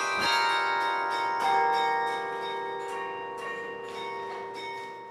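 Carillon bells playing a slow tune: notes struck one after another, each ringing on and overlapping the next, the sound fading a little toward the end.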